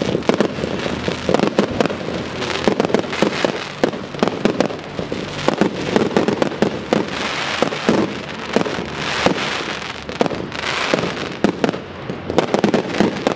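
Fireworks display going off: a dense, unbroken stream of bangs and crackles from bursting aerial shells and crackling effects, many reports a second.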